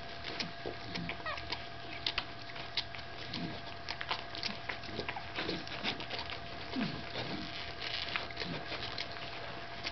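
15-day-old Staffordshire Bull Terrier puppies nursing from their mother: many small wet suckling clicks, with brief squeaks and whimpers that rise or fall in pitch, clearest about a second in and again about seven seconds in.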